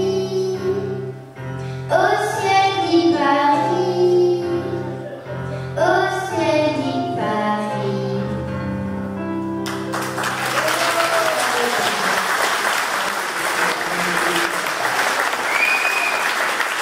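A young girl sings into a microphone over held instrumental accompaniment; the song ends about ten seconds in and the audience breaks into applause.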